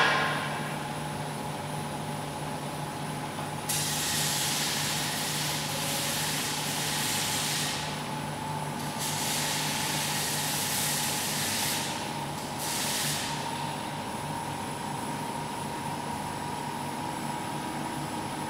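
Hurco VMX64/40T vertical machining center powered up, with a steady hum and a faint whine. Three bursts of hissing rise over it, starting about four, nine and twelve and a half seconds in; the first two last three to four seconds and the last about one second. It opens on the fading tail of a loud burst.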